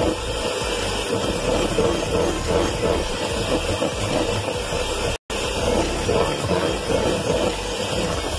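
Electric hand mixer running steadily, its beaters whipping thick royal icing in a plastic bowl. The sound breaks off for an instant about five seconds in.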